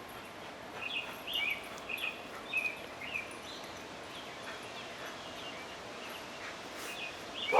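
A bird chirping in a string of short calls, about two a second, that thin out after about three seconds, over a steady outdoor background hiss.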